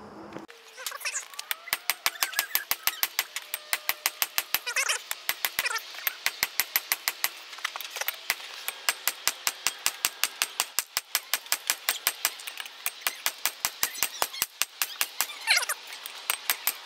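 Rapid hand-hammer blows on red-hot leaf-spring steel lying on an anvil, about four or five strikes a second, drawing the bar out longer and thinner.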